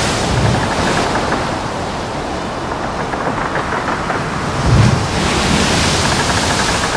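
Rushing, surf-like water noise that swells twice, with a low thud about half a second in and a stronger one near five seconds.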